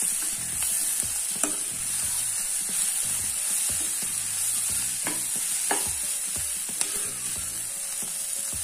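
Sliced onions, shallots and curry leaves frying in hot oil with a steady sizzle while being stirred, the steel spoon scraping and knocking against the nonstick pan a few times.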